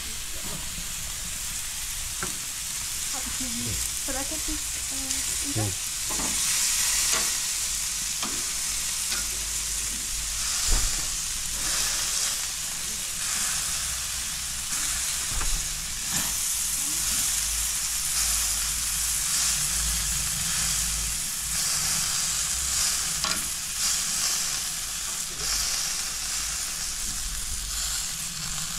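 Beef burger patties sizzling steadily on a gas grill's grates, with scattered sharp clicks and scrapes of metal tongs against the grate as the patties are lifted.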